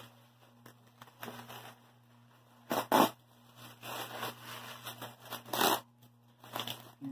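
Plastic bubble wrap being pulled and unwound off a wrapped object, crinkling and rustling in irregular bursts, loudest about three seconds in and again near six seconds in.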